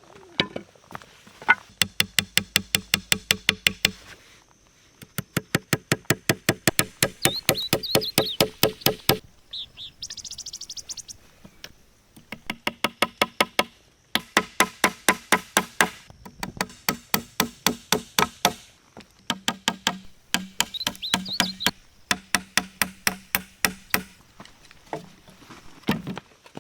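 Rapid, sharp knocking, about eight strikes a second, in several runs of two to four seconds separated by short pauses.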